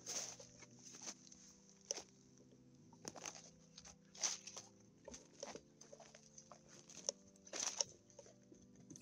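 Footsteps of someone in rubber boots walking through long grass and forest undergrowth: irregular swishing rustles, some louder than others, with faint steady low tones underneath.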